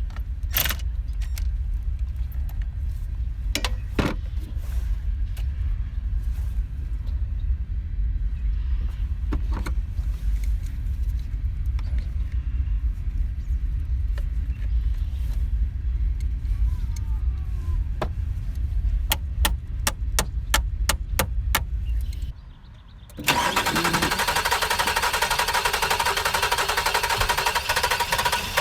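Sharp tool clicks under a low rumble, with a quick run of about ten clicks; then, after a short break, the 2005 Nissan Murano's 3.5-litre V6 engine starts and runs steadily, a sign that the new fusible link has cured the no-crank, no-start fault.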